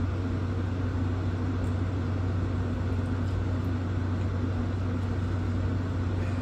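Steady low background hum with an even hiss, unchanging and with no distinct sounds over it.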